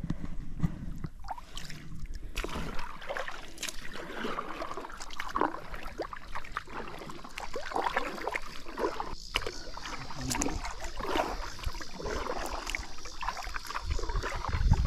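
Kayak paddle strokes splashing and dripping in shallow river current, irregular water splashes and gurgles through the whole stretch. A steady high hiss sets in about five seconds in.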